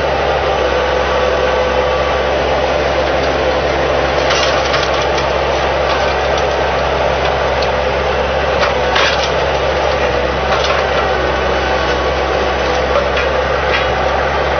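Skid steer loader engine running steadily, with a few brief clanks and scrapes from the attachment partway through.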